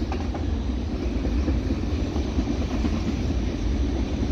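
Steady low rumble of a freight train on the rails, even throughout with no distinct beat of wheels.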